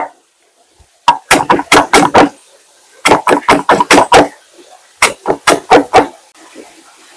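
Knife chopping on a cutting board: three quick runs of sharp chops, about six a second, with short pauses between them.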